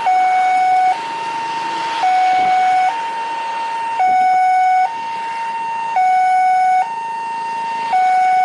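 Two-tone siren switching between a low and a high note about once a second, the low note louder, over a faint background hiss.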